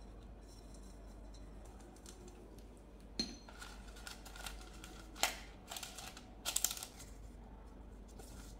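An aluminium cake pan is set down on the counter with a light metallic knock about three seconds in. Then baking paper crackles and rustles in short bursts as it is laid into the pan and pressed flat against the bottom.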